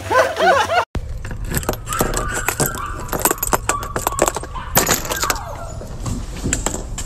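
Keys jangling and clicking in a door lock, with the knob and latch rattling as a door is unlocked and opened.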